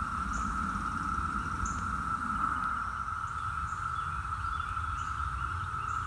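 Chorus of Brood X 17-year periodical cicadas: a steady, unbroken drone held at one pitch, with a low rumble underneath.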